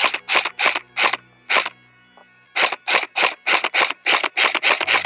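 KWA Q10 RM4 airsoft electric rifle (an AEG with a recoil weight in the buffer tube) firing rapid single shots: about six, a pause of about a second, then about a dozen faster ones.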